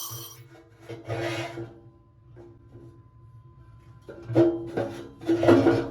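Metal rubbing and scraping against metal in three separate bursts, about a second in, about four seconds in and near the end, as a part is worked into place in a test fit. Background music plays under it.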